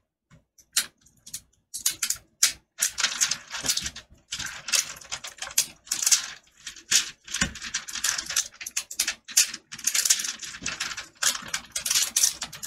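Black plastic insulating film crackling and crinkling in irregular bursts as it is peeled off a laptop motherboard.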